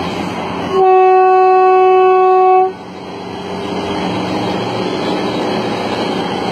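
A horn sounds one steady blast of about two seconds at a single pitch, over the continuous noise of a running vehicle.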